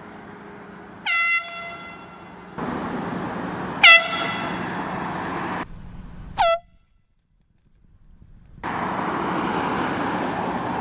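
Air horn blasted three times in short bursts, each starting with a quick upward scoop in pitch before holding a shrill steady tone.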